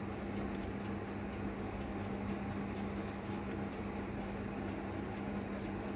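Electric countertop oven running with a steady hum: one constant low tone under an even whir.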